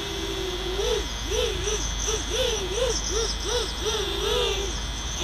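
Brushless motors of a 6S FPV mini quad (Cobra 2208-1200Kv, HQ6045 props) whining: a steady pitch for about the first second, then rising and falling in quick swoops about twice a second as the throttle is worked.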